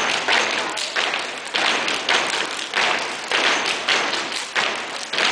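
Step routine: a group of steppers stomping and clapping in unison, a steady rhythm of sharp strikes about two to three a second.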